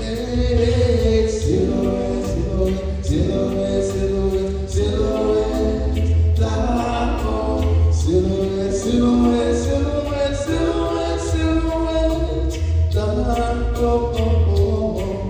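A man singing into a microphone over layered, choir-like vocal harmonies, with a low pulsing bass beneath.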